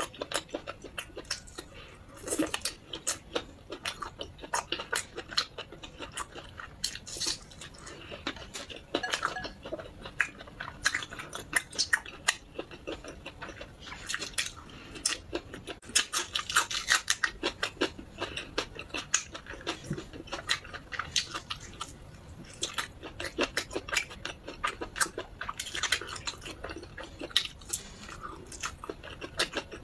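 Close-up chewing of skewered meat rolls wrapped around green onion: a dense, irregular run of wet mouth clicks and smacks, with louder bites now and then.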